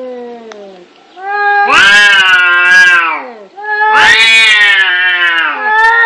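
Cats caterwauling in a fight: long, wavering yowls of about two seconds each, rising then sliding down in pitch, harsh and screechy at their loudest. A falling yowl fades in the first second, two full yowls follow, and a third begins near the end.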